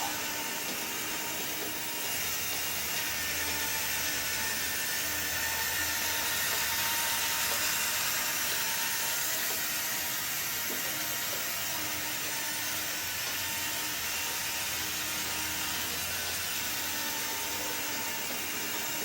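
Small electric motor of a toy Mark VII monorail running along its track with a steady whir, over a constant hiss.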